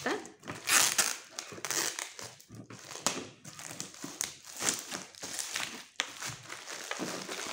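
Packaging crinkling and rustling as a boxed bathroom accessory set is unwrapped by hand, in uneven bursts, the loudest about a second in.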